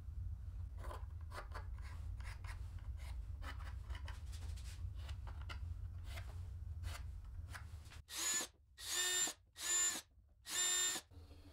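Faint light taps of MDF pieces being handled, then a drill with a thin bit runs in four short bursts, each about half a second and about a second apart, drilling small holes into an MDF board.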